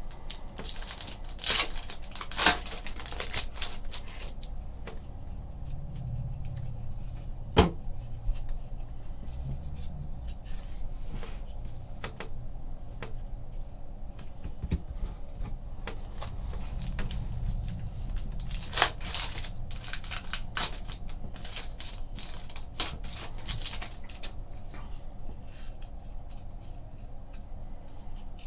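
Trading cards being handled: cards sliding and rustling against each other in stretches of a few seconds, with scattered taps and a few sharp clicks.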